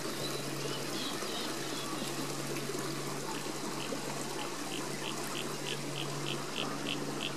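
Creek water trickling and running over a small drop, a steady wash of sound. Underneath is a steady low hum, and from about three seconds in a faint high chirp repeats about three times a second.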